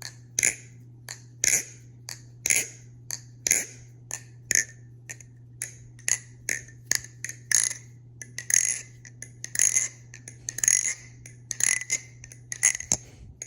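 TheOne Alien balisong (butterfly knife) being flipped: its metal handles and pins snap shut in sharp metallic clicks with a bright ring. The clicks come about once a second at first, then faster and more irregularly about halfway through.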